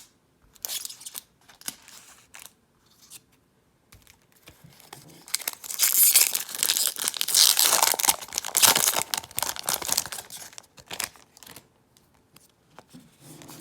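Magic: The Gathering booster pack's foil wrapper being torn open and crinkled by hand, with a loud rustling stretch of about five seconds in the middle and a few brief rustles before it.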